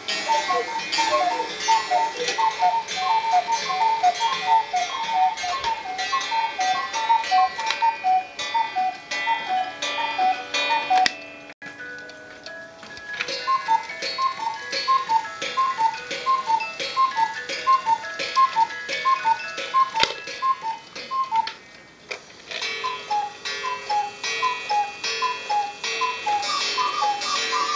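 Several mechanical cuckoo clocks ticking together and cuckooing on the hour, with overlapping two-note calls from different clocks. The calls thin out about halfway through, then carry on in steady high-low pairs.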